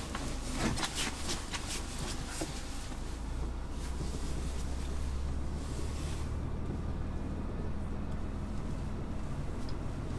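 Scania truck's diesel engine running at low speed, heard from inside the cab as a steady low drone that swells a little partway through. A few sharp clicks come in the first two seconds.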